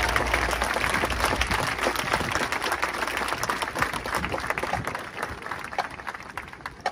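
Stadium crowd applauding, a dense patter of clapping that thins out over the last two seconds to a few scattered claps.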